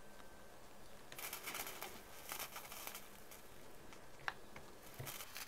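Faint sizzling and crackling of aluminium solder and flux melting under a hot soldering iron on a LiPo cell's aluminium tab. It starts about a second in and dies down past the middle, followed by a couple of small clicks near the end.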